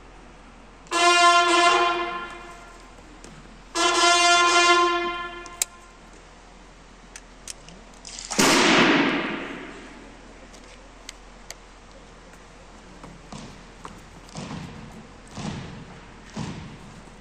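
Bugles of a school drum and bugle corps sounding two long held notes at the same pitch, a couple of seconds apart. About eight seconds in comes a single crash that rings away over a second and a half, and near the end a few soft scattered drum taps.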